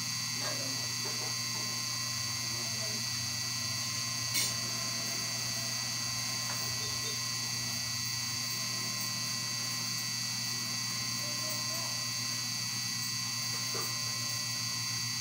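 Steady electrical hum with several thin, high whining tones held at one level, and a single sharp click about four seconds in.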